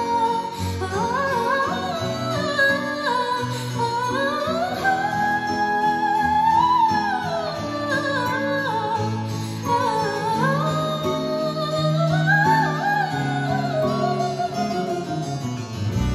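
A woman singing a melody with long held and gliding notes, accompanied by piano with sustained low notes. It is concert video audio played back through Dynaudio Acoustics M3 home-theatre speakers and heard in the room.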